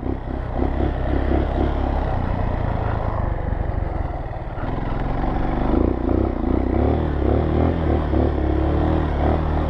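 Honda CRF230L's single-cylinder four-stroke engine running under way as the dirt bike is ridden, easing off briefly about four seconds in and then pulling harder again.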